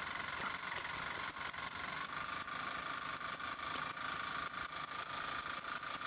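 Homemade LEGO two-stroke combustion engine running on spark ignition: a rapid, slightly uneven run of sharp firing pops over a steady high whine. The whine drops a little in pitch about two seconds in.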